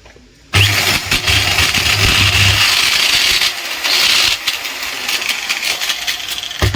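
Electric angle grinder switched on about half a second in and running free with a very loud, rough, noisy whine. The owner thinks the noise comes from a failing bearing, most likely the upper armature bearing (a 607 or 608).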